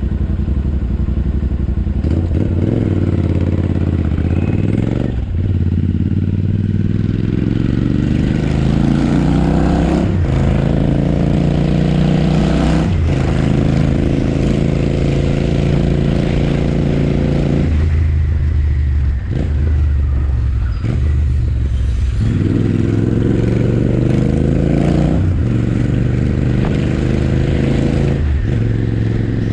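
Royal Enfield Interceptor 650's parallel-twin engine and exhaust under way, accelerating through the gears: the revs climb and fall back sharply at each upshift, several times over.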